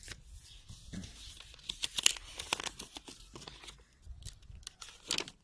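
Folded slip of paper being unfolded by hand: irregular crinkling and rustling, busiest about two seconds in.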